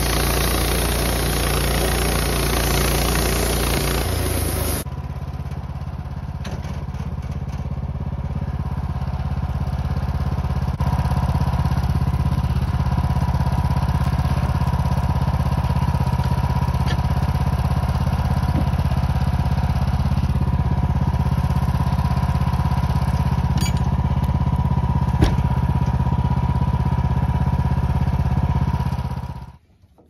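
Wood-Mizer LT15 band sawmill running steadily as its band blade is pushed through a Ponderosa pine log, with a steady whine over the engine noise. The sound changes abruptly about five seconds in and cuts off suddenly near the end.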